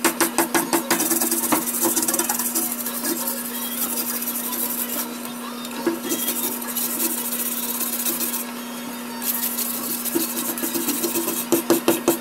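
A hand tool scraping bark off a dried tree limb in quick strokes, about ten a second at first, thinning out in the middle and picking up again near the end. A steady low tone runs underneath.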